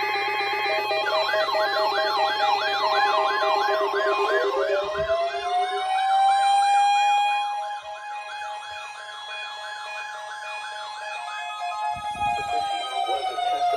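Several warning sirens sound at once. One electronic siren sweeps up and down rapidly, about two to three times a second, over a warbling tone. About four seconds in, another siren rises to a steady wail that winds down near the end.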